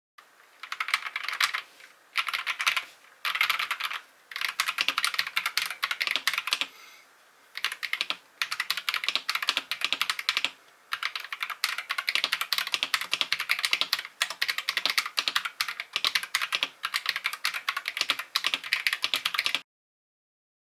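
Typing sound test on an Akko TM680 mechanical keyboard fitted with Akko Radiant Red linear switches, its case still unmodded with no foam or tape: quick runs of key clacks broken by several short pauses. The result sounds alright, but just alright.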